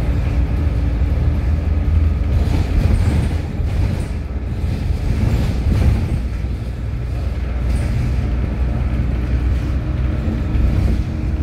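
Steady engine and road rumble heard from inside a moving vehicle, a deep drone with a faint steady hum over it.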